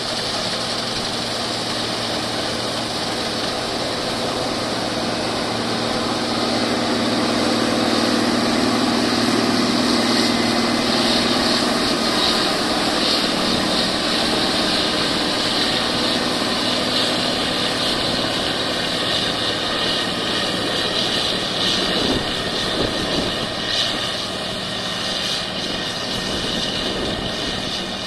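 John Deere 9860 STS combine harvester cutting and threshing wheat under load, its straw chopper throwing out residue: a loud, steady mechanical drone with a hiss over it, swelling a little around ten seconds in.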